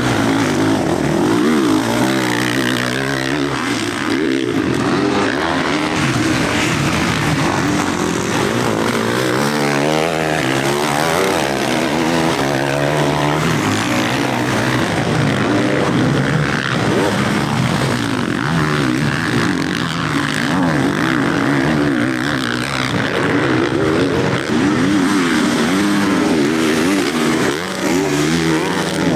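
Several MX1 motocross bikes racing, their engines revving up and down in overlapping rising and falling pitches.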